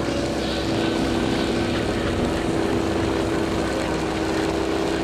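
KTM 990 SMT's 75-degree V-twin, breathing through a LeoVince aftermarket exhaust, running at steady revs with an even engine note.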